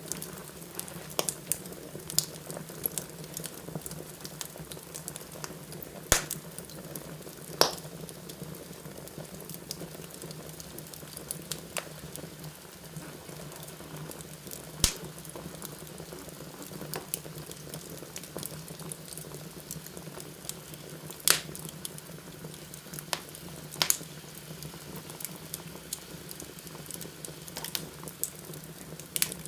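Wood fire burning in a fireplace: a steady low rush of flame with scattered sharp crackles and pops, a few of them louder.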